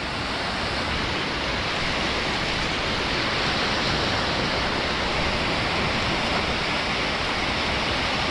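Steady rushing noise of surf washing over the shallows at the water's edge.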